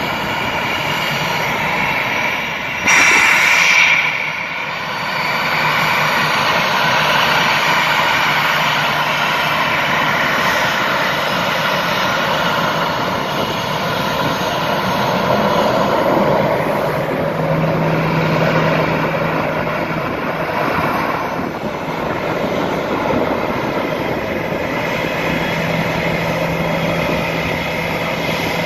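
Airbus A320's twin jet engines running at low thrust as the airliner taxis, a steady whine with a low hum underneath. A sudden loud burst of noise about three seconds in lasts about a second.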